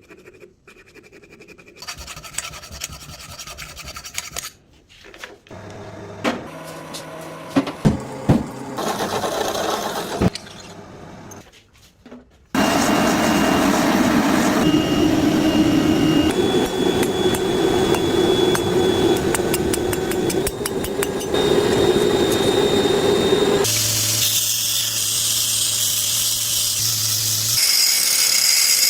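Metalworking tools scraping and grinding on steel in a run of short cuts. A steadier, continuous stretch of grinding fills the middle.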